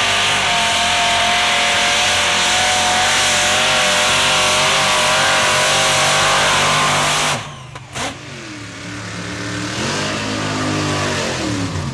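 Mud truck engine running hard at high revs, its pitch wavering, until it cuts off abruptly about seven seconds in. A second mud truck's engine then revs up and down in sweeping rises and falls as it churns through mud.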